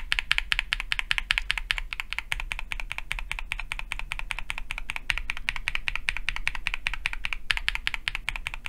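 Fast, steady typing on a QK65 R2 mechanical keyboard fitted with switches that have a PC top housing, a nylon bottom housing and a POM stem, each press bottoming out with a crisp click, with one short pause near the end.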